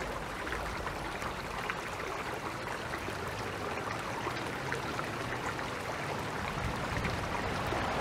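Shallow creek babbling over rocks and stones: a steady rush of water, flecked with many small splashes and trickles.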